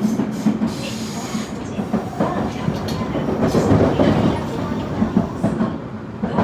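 Tobu 20400 series electric train running, with wheel and track rumble and clicks as the wheels pass over rail joints, together with the running sound of its Toyo Denki GTO-VVVF traction equipment.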